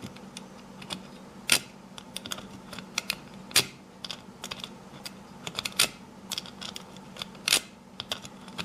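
Bobby pin raking the pins of a 5-pin deadbolt cylinder: irregular metallic clicks and ticks as the pin scrapes in and out of the keyway, with a few louder clacks.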